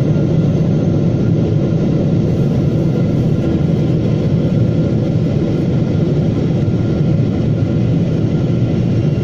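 Jet airliner cabin noise: the steady, even rumble of the engines and rushing air, heard from a window seat in flight.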